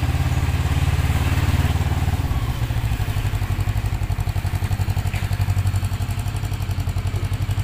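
Motorcycle engine running with a steady, low, even pulse.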